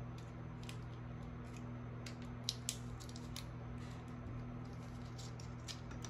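Small sharp clicks and crinkles of the packaging of a replacement HDMI port being opened by hand, scattered irregularly, the two loudest close together about two and a half seconds in. Underneath runs a steady low electrical hum.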